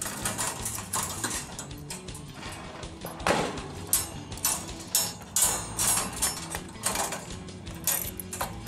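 Wire cage rattling and clinking, a run of irregular metal clicks and knocks, with a hand working the chain clip on the cage door near the end.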